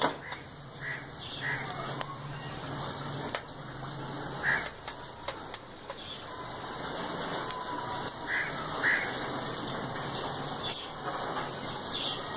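Steel skewers of chicken wings set down across the rim of a charcoal grill box, giving a few metal clicks in the first half, while birds call briefly in the background a few times.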